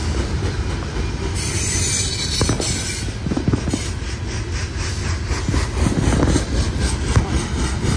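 CSX empty coal train rolling past, wheels clattering rhythmically over the rails with a steady low rumble. A high wheel squeal rises out of it about a second and a half in and fades after a second or so.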